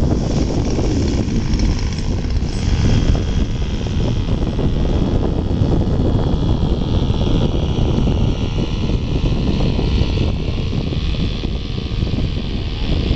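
RC Ugly Stick model airplane's engine running slowly through the touchdown and rollout, a faint high whine over a steady low rumble.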